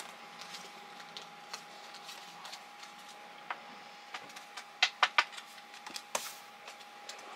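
Playing cards being handled and laid on a wooden table, with a few sharp taps, a quick cluster of them about five seconds in. A faint steady high-pitched hum runs underneath.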